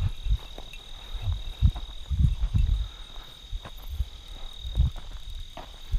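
A steady, unbroken high insect trill, as of crickets at night, with irregular low thuds of footsteps underneath.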